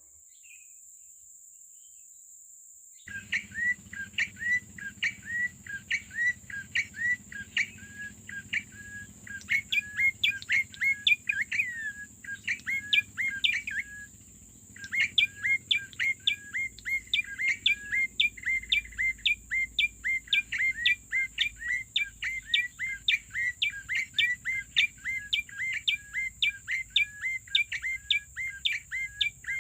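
A small bird chirps in a fast, even series of short, high calls, several a second. The calls start about three seconds in and stop briefly near the middle.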